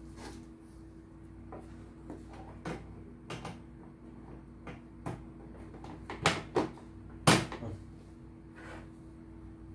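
Plastic clicks and knocks as an embroidery hoop is handled and fitted onto the carriage arm of a CNY E900 embroidery machine, scattered throughout, with the sharpest few coming close together about two-thirds of the way through. A steady low hum runs underneath.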